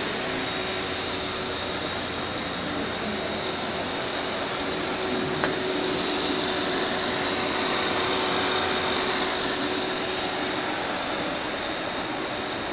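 Honda VTR1000F Superhawk's 90-degree V-twin idling steadily through carbon-fibre slip-on mufflers, with a steady high hiss over it. A single short click comes about five and a half seconds in.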